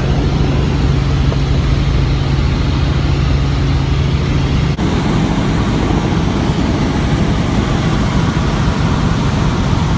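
Helicopter in flight heard from inside the cabin: a loud, steady engine and rotor drone with a low hum. The hum changes abruptly about halfway through.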